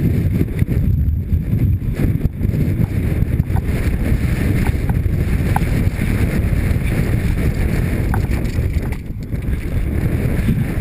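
Mountain bike descending a rocky dirt trail at race pace, heard from a helmet-mounted camera: wind buffeting the microphone over a continuous rumble of tyres on loose dirt and stones, with a few small clicks and rattles from the bike.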